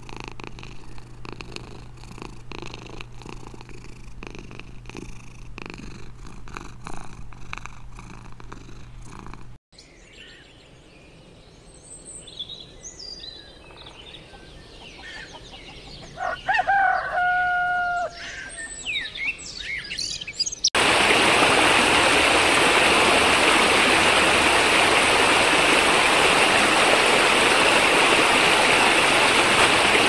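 A domestic cat purring steadily, in a low rhythmic rumble. After a cut the sound drops to faint outdoor background with birds chirping, and one loud two-tone call just past halfway. A loud, steady rushing noise then fills the last third.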